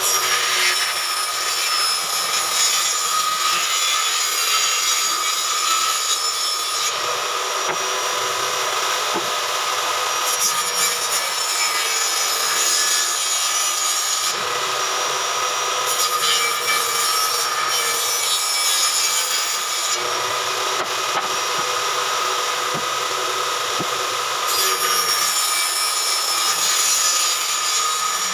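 Homemade table saw, its blade set through a plywood top, running steadily with a constant whine. It rips through wood in several passes and runs free in the short spells between them.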